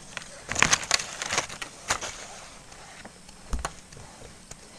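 Close handling noise: crackling rustles of leaves and grass, with a few separate sharp clicks from the fishing crossbow and its line being handled.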